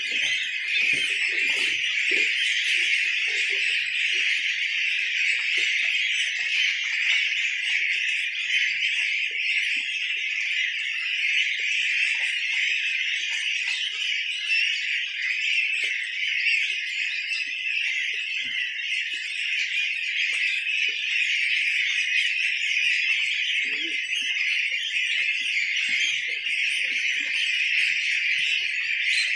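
A large flock of 18-day-old goslings peeping all together in a steady, high-pitched chorus.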